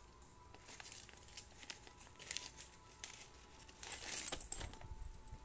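Clear plastic wrapping crinkling as a wristwatch is handled and pulled out of its bag, with scattered small crackles and a louder burst of rustling about four seconds in.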